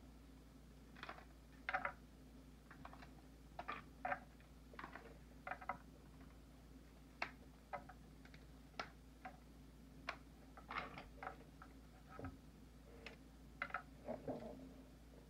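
Faint, irregular clicks and crackles of a cooked lobster's shell being cracked and pulled apart by hand, the legs snapping off the body.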